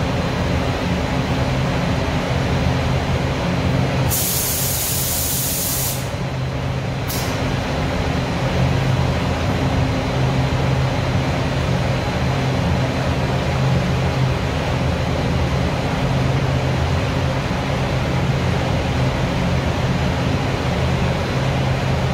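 Paint spray booth air handling running steadily with a low hum. About four seconds in, compressed air hisses for about two seconds, then once more briefly a second later.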